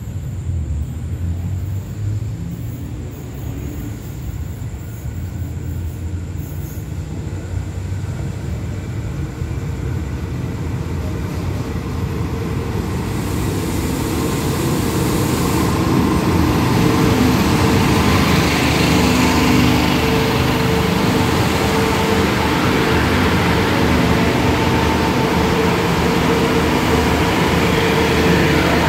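Three-car diesel railcar express train approaching and rolling into the station. Its engine rumble grows louder over the first half and then runs steadily as the cars pull alongside the platform, with a brief high hiss about halfway through.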